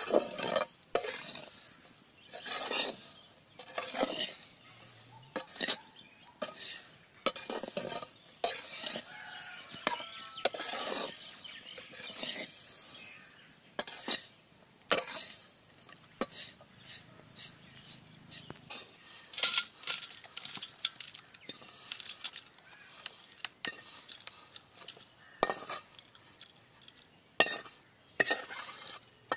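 Metal spatula stirring and scraping a dry, crumbly ragi flour mixture in an aluminium kadai, with irregular scrapes and clanks against the pan. Near the end the kadai is tipped and scraped over a steel plate.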